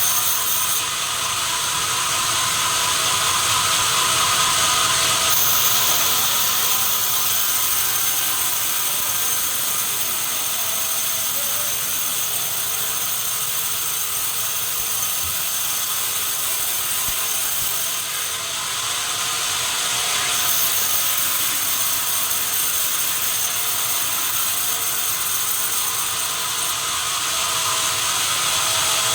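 Sawmill machinery running steadily, a continuous hissing mechanical noise mostly in the high range.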